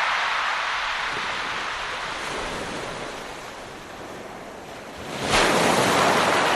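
Ocean waves breaking on a shore: the wash of one wave fades away, then the next wave crashes suddenly about five seconds in.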